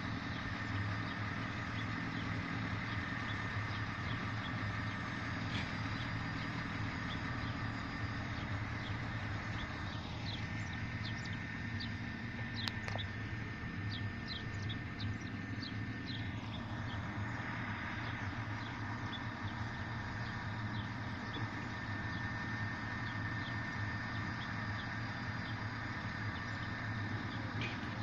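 Diesel engine of a yellow SŽDC overhead-line maintenance railcar idling steadily, a constant low hum with a thin high whine over it. Birds chirp briefly around the middle.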